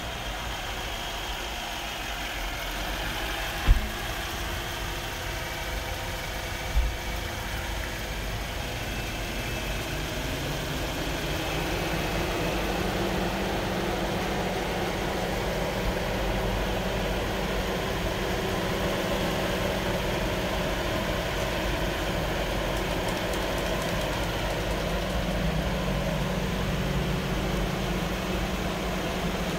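Mercedes-Benz S550's twin-turbo V8 idling steadily just after being started, with two sharp knocks about four and seven seconds in. The hum grows a little louder and steadier about twelve seconds in.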